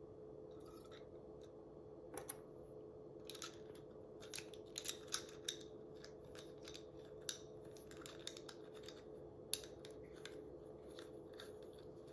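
Small plastic and metal spray-gun parts being fitted together by hand: a string of light clicks and scrapes as a spring and needle go into the nozzle housing and a threaded fitting is turned on, with one sharper click near the end.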